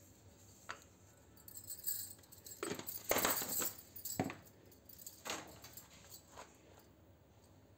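Steel kitchenware clinking and rattling: a few sharp clinks, with a busy clatter about three seconds in that is the loudest part.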